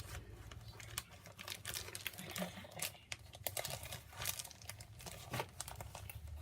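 Crinkling and small irregular clicks of a paper pack's wrapping as fingers carefully pick a piece of tape off it.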